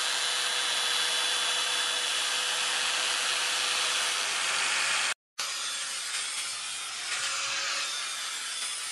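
Electric angle grinder with an abrasive disc grinding a steel blade forged from a leaf spring, a steady grinding with a faint held motor tone. It cuts out briefly about five seconds in, then continues less evenly as the disc works the flat of the blade.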